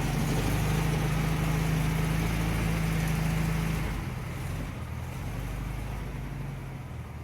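1975 Chevy C10 truck engine running steadily at a raised speed, then dropping to a lower, quieter idle about four seconds in.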